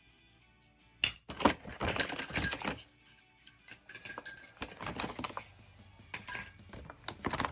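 Background music with a quick run of clattering and clinking from hard objects being handled, starting about a second in.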